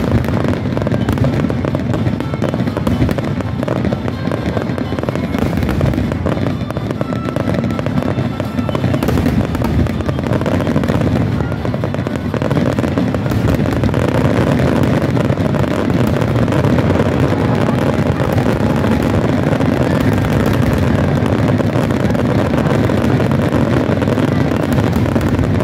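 Fireworks shells bursting in quick succession. The booms and crackles run together into a continuous loud rumble, heavy in the low end, with no real pause between bursts.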